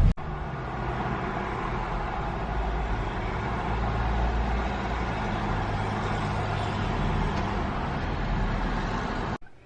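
Car driving, heard from inside the cabin: a steady rumble of engine and road noise.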